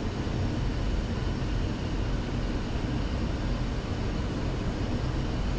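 Steady flight-deck noise of a Boeing 737 on short final approach: a continuous rush of airflow and engine noise with a low rumble underneath.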